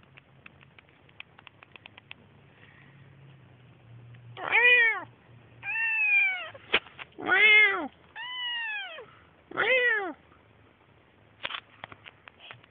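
Two-month-old kitten meowing five times, roughly a second or so apart, starting about four seconds in; each meow rises and then falls in pitch. Faint scattered clicks come before and after the meows.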